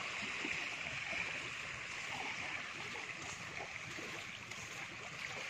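Steady soft wash of small waves lapping on a sandy shore, an even hiss with no distinct events.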